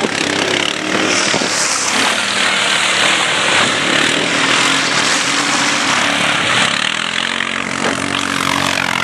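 Quad ATV engine revving hard under load up a steep dirt hill climb, wheels spinning in the loose soil. It is a dense, steady noise through the middle, and the engine's pitch is plainer near the end.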